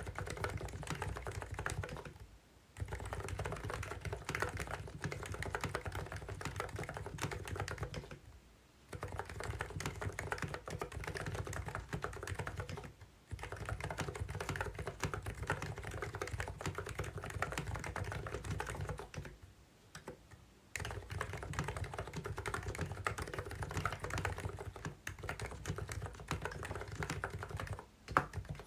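Typing on a COX CNK84W electro-capacitive (Topre-style) mini keyboard: fast, continuous key presses in long runs, broken by short pauses about five times.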